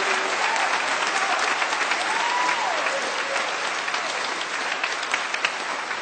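Audience applauding, with one short call rising and falling over the clapping about two seconds in; the applause slowly dies down.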